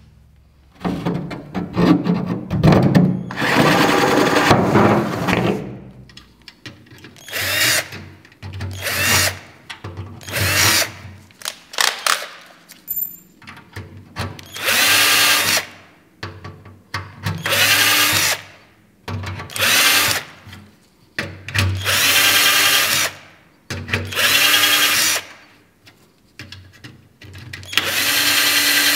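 Cordless drill run in short bursts, about a dozen of them, each lasting roughly a second with a rising motor whine and stopping in between. It is drilling holes for the cowling fasteners.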